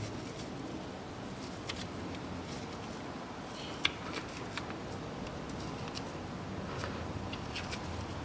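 Gloved hands working at a front swivel housing: faint scattered rustles and light clicks, with one sharper click about four seconds in, over a low steady hum.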